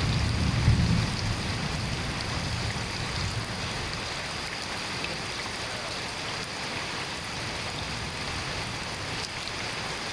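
Steady rain falling, with a low rumble of thunder dying away over the first two or three seconds.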